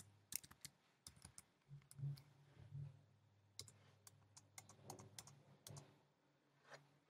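Faint, irregular computer keyboard clicks as a number is typed in.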